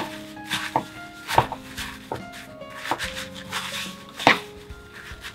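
Paper towel crinkling and rustling as hands press it over cooked potato cubes in a plastic bowl to blot off their moisture, with irregular sharp crackles and knocks, the loudest at the start and about four seconds in. Light background music with held notes plays underneath.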